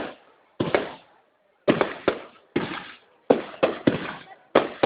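Aerial fireworks shells bursting in an irregular string of sharp bangs, about eight in a few seconds, each one trailing off in an echoing tail. Several come in quick succession near the middle and end, with a short quiet gap about a second in.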